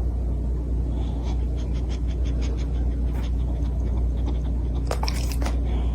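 A dog panting rapidly and evenly, over a steady low rumble.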